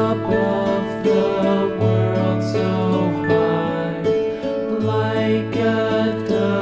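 Background music: gentle plucked-string instrumental with a steady bass line.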